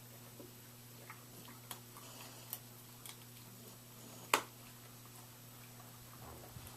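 Scattered light clicks and taps from dogs moving about at play, with one sharper click about four seconds in, over a steady low hum.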